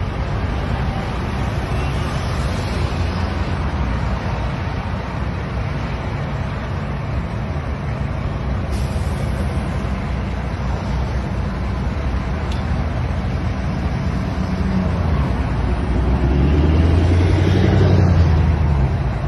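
A semi truck's diesel engine idling with road traffic noise, a steady low rumble that swells louder about sixteen seconds in.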